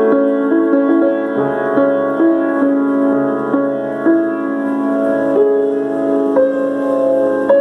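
Solo piano playing a slow melody over sustained chords, with a new note struck every half second to a second.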